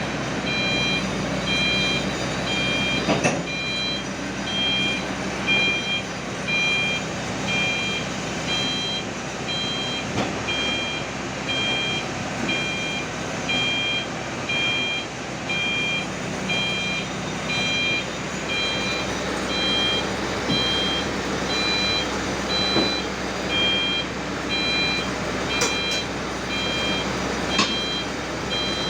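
Travel alarm of an XCMG XR160E rotary drilling rig beeping in an even, steady series over its diesel engine running, as the rig moves during loading. There is a single knock about three seconds in.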